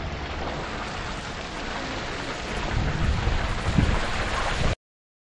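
Wind buffeting the microphone: a steady hiss with low rumbling gusts, growing a little louder toward the end before cutting off suddenly.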